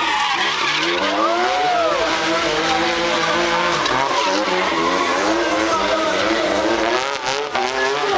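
Drift car's engine revving hard, its pitch swinging up and down again and again, with the rear tyres squealing as they spin and smoke through a slide.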